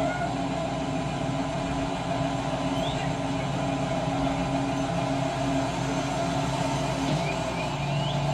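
A steady mechanical hum made of several constant tones, like a motor or engine running, with a few faint short chirps a couple of times.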